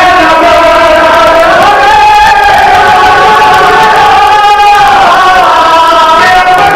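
A group of men singing a Shia mourning lament (masaib) together into a microphone, loud, in long held notes that step to a new pitch every couple of seconds.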